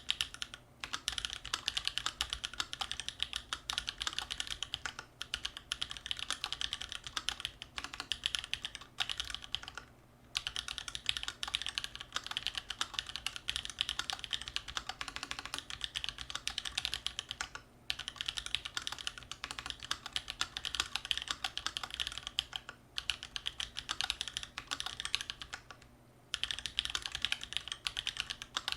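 Continuous fast typing on a custom mechanical keyboard with Holy Panda tactile switches on a steel plate and GMK keycaps: a dense stream of keystroke clacks, broken by short pauses a few times.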